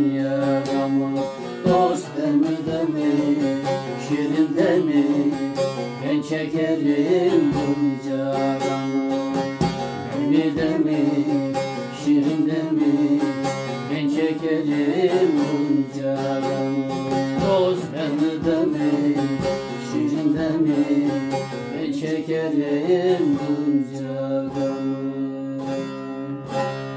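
Bağlama (long-necked Turkish saz) strummed and plucked, playing a folk-song melody over a steady drone of open strings.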